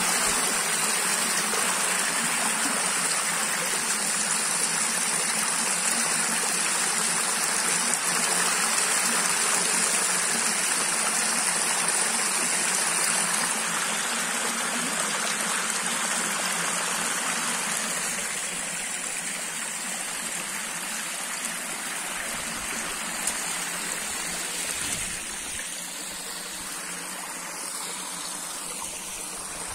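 Shallow winter stream, running after heavy rain, spilling over a low rock ledge: a steady rush and splash of flowing water that grows fainter in the second half.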